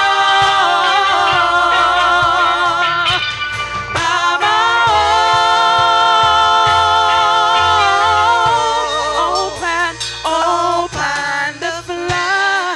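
Gospel worship music: singing in long held notes with wide vibrato over a steady low bass line, softening and breaking up in the last few seconds.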